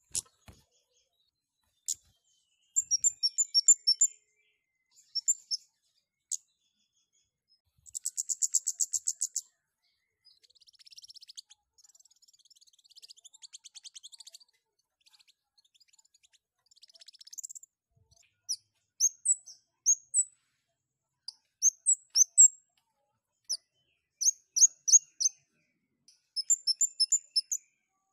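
Kemade (scarlet-headed flowerpecker) singing busily: runs of high, thin chips and short rapid trills, with a quieter scratchy twittering passage in the middle. It is the chattering of a male in breeding condition.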